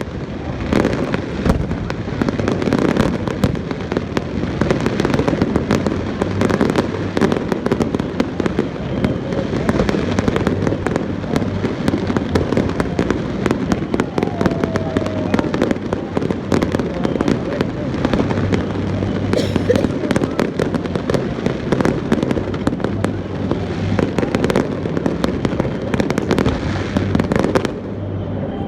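Fireworks display: a dense, continuous run of bangs and crackles.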